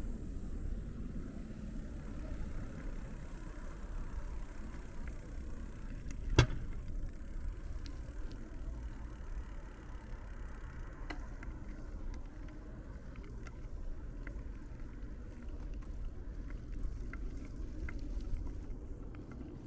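Steady low rumble of road traffic, with one sharp click about six seconds in and a few faint ticks later on.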